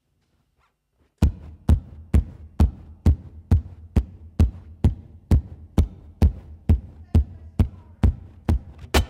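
Acoustic guitar body struck by hand as a percussion beat: a steady, kick-drum-like thump about twice a second, starting about a second in.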